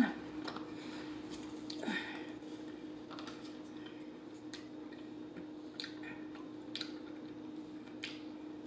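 Close-miked eating of fries: soft chewing and mouth smacks with scattered small clicks, over a faint steady hum.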